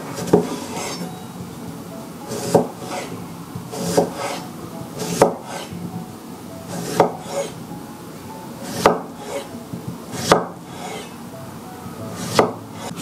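Kitchen knife slicing a cucumber on a wooden cutting board: about eight slow, separate cuts, each a sharp knock of the blade through onto the board, one every second or two.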